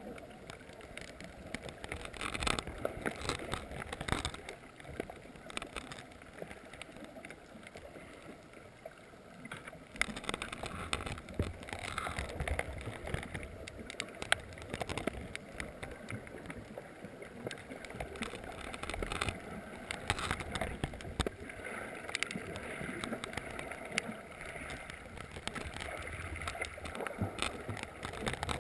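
Underwater reef sound picked up by a GoPro inside its waterproof housing: a steady muffled wash of water full of small clicks and crackles, swelling louder a couple of seconds in and again from about ten seconds in.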